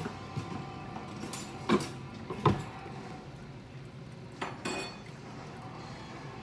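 A metal spoon and stainless steel cooking pots clinking on a stovetop: two sharp clanks a little under two seconds and two and a half seconds in, then two softer ones near the middle.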